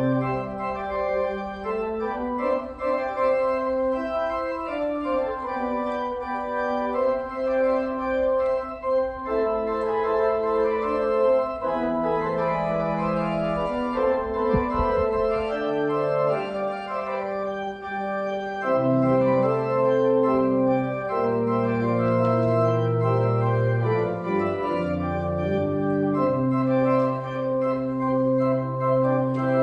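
Church organ playing a postlude after the dismissal, with sustained chords over a bass line that moves in steps.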